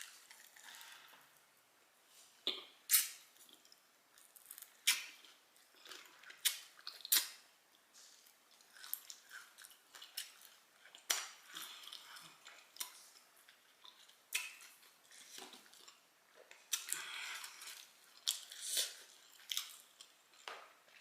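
Close-up chewing of a sauced fried chicken wing: wet mouth sounds with sharp, crunchy clicks at irregular intervals, every second or two.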